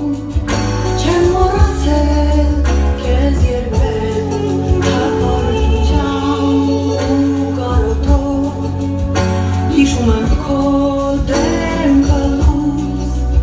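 A woman singing live into a microphone through a concert hall's sound system, backed by a band with drums and keyboards under a strong bass line.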